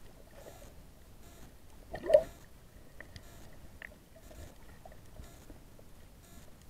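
Muffled underwater sound through a submerged camera's waterproof housing: a faint steady hiss with a short, louder burst of water noise about two seconds in and a few faint clicks.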